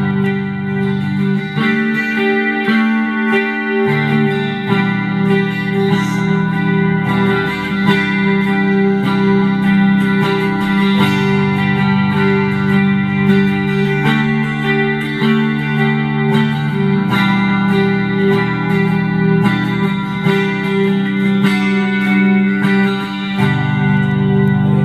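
Telecaster electric guitar played through a Meteoro GS-100 amplifier and a Boss GT-8 effects processor, with notes and chords ringing on without a break. Picked up by the camera's own microphone.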